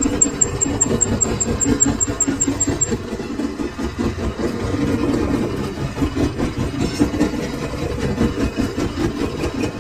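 Metal lathe running: a steady, rough mechanical drone.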